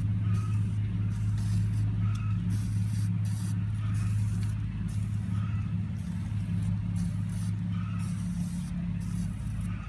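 Aerosol penetrating oil sprayed in short bursts onto the back of a Farmall Cub's wheel bolts, over a constant low hum.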